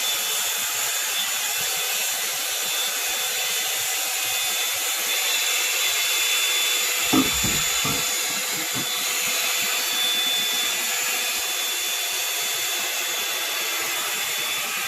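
Revlon One-Step hair dryer brush running steadily: a rush of blown air with a steady motor whine. A brief bump about halfway through.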